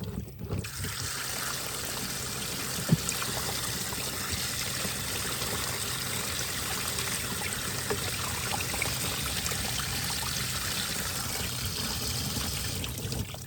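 Water pouring steadily out of the opened housing of an Intex saltwater chlorinator, because a shutoff valve was left open. It starts about half a second in and stops just before the end. There is a brief knock about three seconds in.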